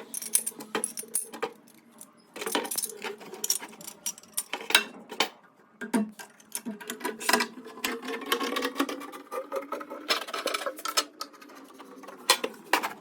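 Irregular clicks, clinks and knocks of small hard objects being handled, such as tools and fittings, in a small room.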